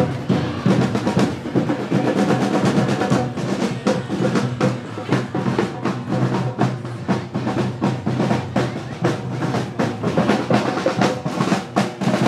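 Marching drums in a street parade: snare and bass drums playing a steady, rolling rhythm.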